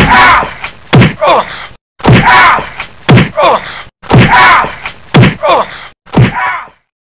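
Edited-in fight sound effect: a loud hit, then a thud with a short falling cry. The same pattern repeats identically about every two seconds, four times, the last one cut short.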